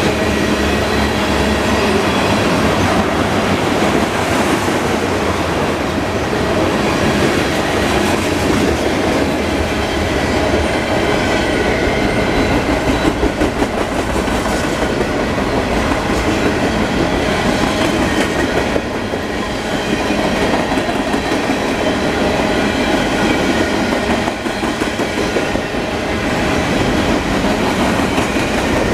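Freight cars of a long manifest train rolling past, the steel wheels clacking and rumbling steadily over the rails.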